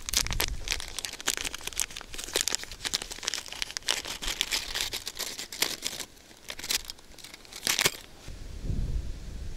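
Plastic packaging crinkling and crackling as it is handled, a dense run of sharp crackles that stops about eight seconds in. Low wind rumble on the microphone near the end.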